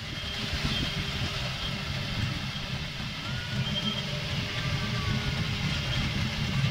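Ride-on miniature railway train running along its track: a steady low rumble of its wheels and running gear.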